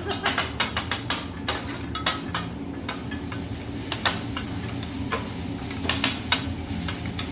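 Hibachi chef's metal spatulas clacking and scraping on the flat-top griddle: a quick run of taps in the first second, then scattered single clinks, over steady sizzling.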